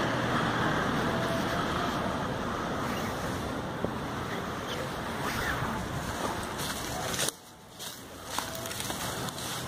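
Steady wind and road noise from a moving vehicle. It drops suddenly about seven seconds in and builds again about a second later.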